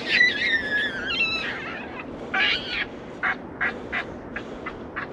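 High-pitched, wavering animal calls: a long squealing call in the first second and a half, a shorter one about two and a half seconds in, then a run of short, sharp sounds.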